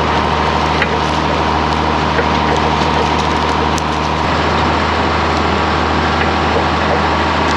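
John Deere tractor engine running steadily as the tractor drives across a stubble paddock, with a steady high whine over the engine and a few brief knocks from the rough ground.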